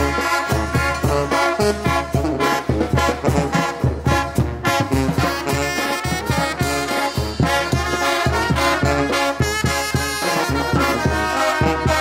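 Mexican wind band (banda) playing an instrumental cumbia passage: brass carrying the melody over a steady, even bass beat.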